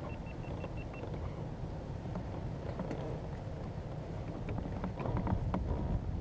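Steady low wind rumble on the microphone, with a quick run of about seven short high pips in the first second and scattered light clicks and knocks that come a little louder near the end.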